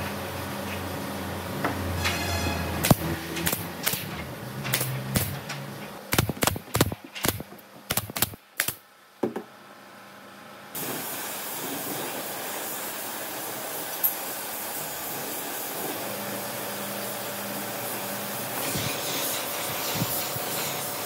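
Workshop handling sounds, then a quick run of sharp knocks about six to nine seconds in. From about eleven seconds a steady hiss of air from a handheld spray tool runs on.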